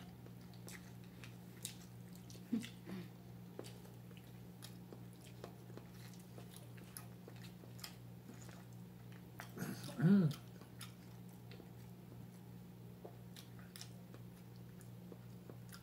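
People chewing while eating with their hands: many small scattered mouth clicks and smacks. There is a brief voice sound about ten seconds in, over a low steady hum.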